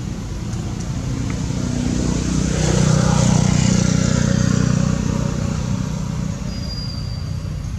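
A motor vehicle passing by: a low engine rumble that swells to its loudest about three to four seconds in, then fades back.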